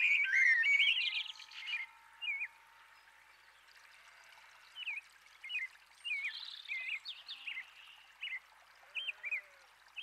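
Songbirds calling: a burst of quick warbling notes in the first two seconds, then, after a short lull, a run of short chirps from about five seconds on.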